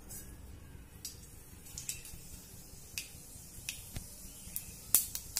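Mustard seeds popping in hot oil as a tempering begins: about ten sharp single pops, spaced out at first and coming more often near the end.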